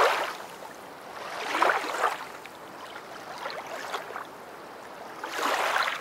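Whooshing noise that swells and fades in surges, three times, with a low steady hiss between them.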